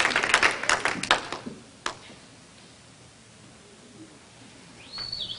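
Audience applause fading out, the last scattered claps stopping about a second and a half in, with one lone clap just after. Then quiet room sound, with a brief high squeal near the end.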